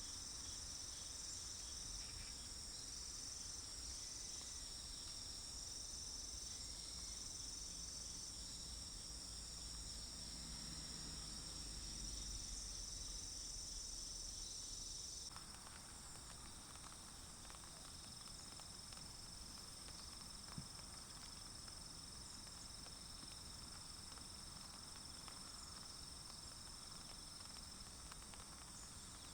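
Steady high-pitched chorus of insects in a forest, a continuous drone whose pitch pattern shifts about halfway through.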